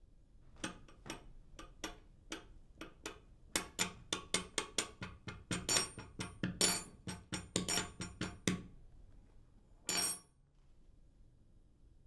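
Fingers tapping and drumming on a wooden dining table: scattered taps at first, then quick runs of taps for several seconds that stop short, followed by one brief noise about ten seconds in.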